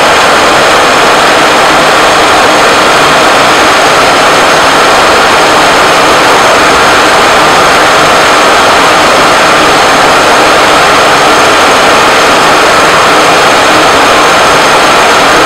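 Conventional milling machine running a friction stir processing pass: the spinning tool shoulder and pin traverse through aluminium 5083 plate packed with silicon oxide powder. The noise is loud and steady, with a faint high whine.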